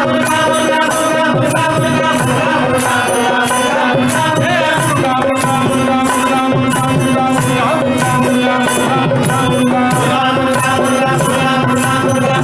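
Carnatic devotional song in Hamsanandi ragam, with a steady held drone note under the melody and an even percussion beat.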